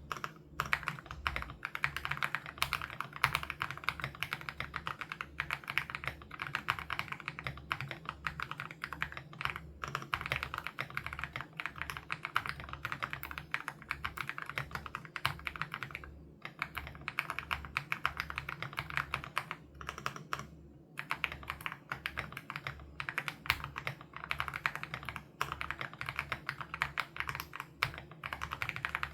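Fast, continuous typing on an Aula F87 Pro mechanical keyboard with HMX Sarcophagus switches: dense runs of keystroke clacks, broken by two brief pauses a little past the middle.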